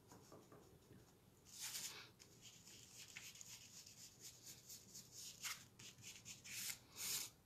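Blending brush dabbed on an ink pad and brushed in short strokes over embossed, heat-embossed cardstock: faint, dry swishing and scratching.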